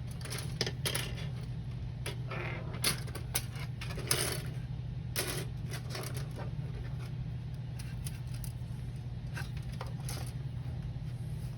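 Plastic model-kit runners being handled: scattered light clicks and short rustles of hard plastic, over a steady low hum.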